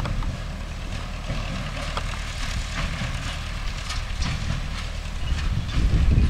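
MTZ-5 tractor's diesel engine running steadily while driving a hay baler, with rapid mechanical clicking and clatter from the baler's working parts. The engine gets louder near the end.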